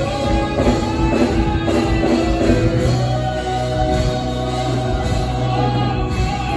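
Live gospel song: singing over steady instrumental accompaniment with a strong bass line.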